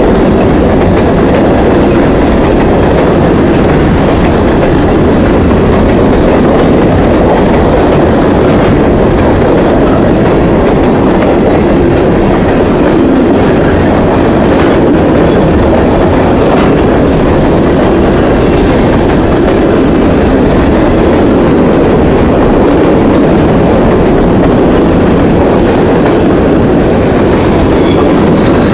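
Covered hopper cars of a long grain train rolling past close by: a steady, loud rumble of steel wheels on the rails.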